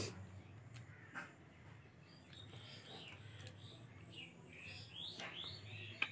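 Mouth sounds of eating soft rice and chicken curry by hand: wet smacks and clicks near the start, about a second in, and again just before and at the end. Through the middle, a small bird chirps repeatedly in the background.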